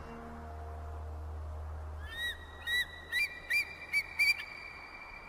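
The song's last low drone fades out about two seconds in. A bird then calls in about six quick, short chirps, each rising and falling in pitch, over a soft hiss in the music video's soundtrack.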